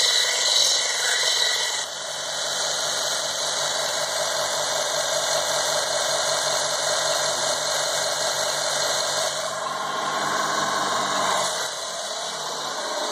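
Ferm belt sander running with a steady motor hum and belt hiss, a TIG tungsten electrode being reground against the moving sanding belt in the first couple of seconds. Its sound drops off about twelve seconds in.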